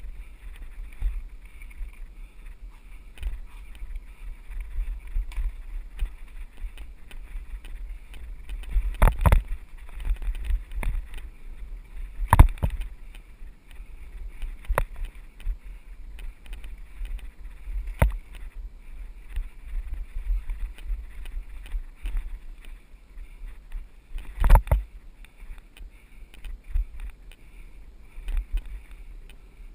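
Mountain bike riding fast down a dirt singletrack, heard from a camera mounted on the bike. A steady low wind rumble on the microphone runs under frequent knocks and rattles as the bike jolts over bumps and roots, with four hard jolts standing out.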